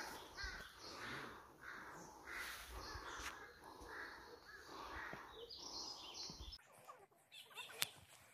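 A crow cawing over and over, a harsh call about every half second, stopping about six and a half seconds in; a few sharp clicks follow near the end.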